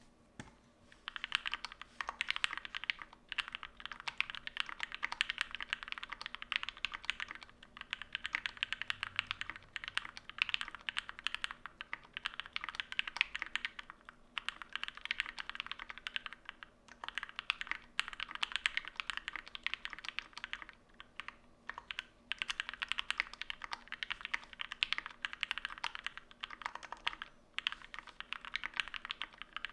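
Fast typing on a custom 60% mechanical keyboard with lubed and filmed Gateron Black Ink linear switches, PBT keycaps, an aluminium plate and foam. The keystrokes come in quick runs of a few seconds with short pauses between them.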